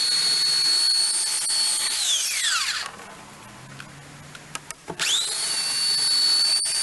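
Electric belt sander sanding a dried wood-putty patch on an oak door, running with a steady high whine. About two seconds in it is switched off and winds down; about five seconds in it is switched on again, the whine rising quickly to full speed.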